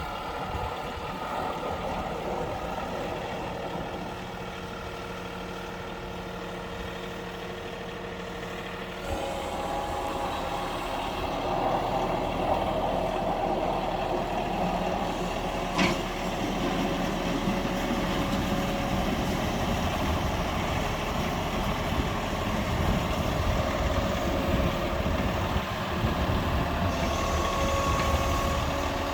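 John Deere 3046R compact tractor's three-cylinder diesel engine running steadily. It grows louder about nine seconds in, and there is one sharp click around the middle.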